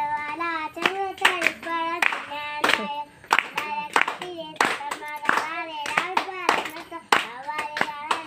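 A young child singing a song in held notes, with handclaps keeping a steady beat along with it, about three claps every two seconds.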